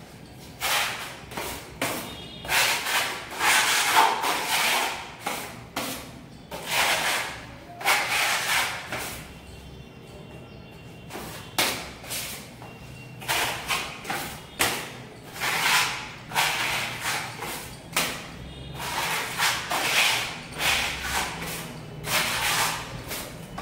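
Putty knife scraping wall putty across a plastered wall in quick, irregular strokes, each under a second long, while the first coat of putty is spread.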